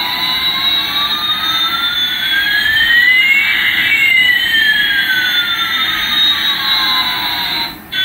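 Electronic jet-engine sound effect from a battery toy Airbus A380 plane: two whining tones, one rising and one falling, crossing midway, then cutting off suddenly just before the end.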